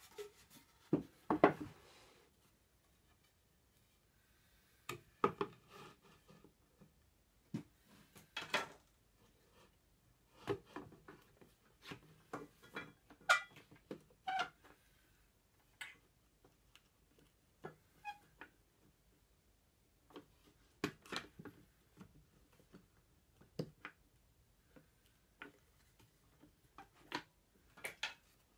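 Scattered knocks, taps and clicks of a wooden rocker, a plywood jig board and a quick-grip bar clamp being handled and set down on a table saw's metal top. The bumps come irregularly, with short quiet gaps between them.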